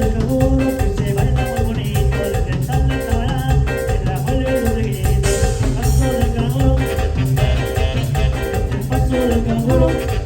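A band playing Latin dance music live, with a steady pulsing bass, a moving melody and rhythmic percussion.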